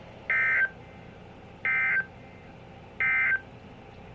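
Emergency Alert System end-of-message signal on a NOAA Weather Radio broadcast: three identical short, shrill digital squawks (the SAME 'NNNN' code), each about a third of a second long and about 1.3 s apart, over faint radio hiss. The squawks mark the end of the alert message.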